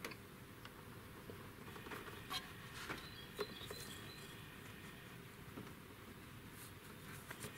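Faint small clicks and rustles of a new rubber valve stem seal being pushed by hand onto an oiled valve stem in an open cylinder head, over a low steady hiss.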